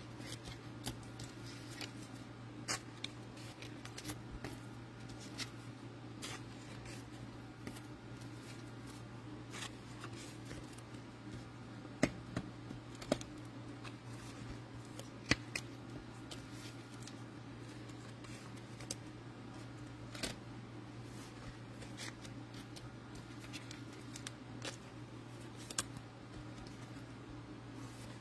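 Trading cards being slipped into plastic sleeves by hand: scattered light clicks and plastic rustles, a few sharper clicks around the middle, over a steady low hum.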